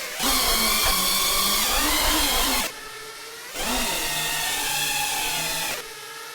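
FPV quadcopter's motors whining in flight, the pitch gliding up and down. The throttle is punched twice, each time for about two seconds, and drops back to a quieter whine between.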